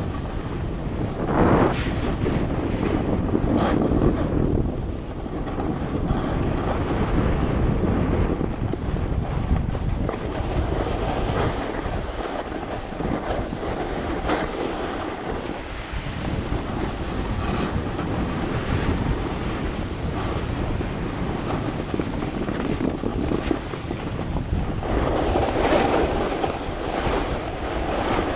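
Wind buffeting an action camera's microphone while a snowboard slides over snow, its base and edges hissing and scraping, with a few louder swells of scraping as the board turns.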